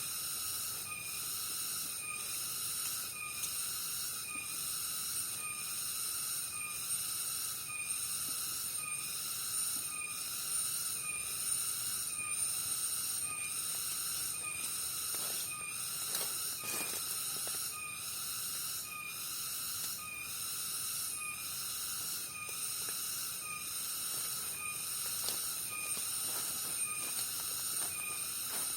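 Insect chorus: a steady high-pitched buzz with a pulsing call repeating about one and a half times a second.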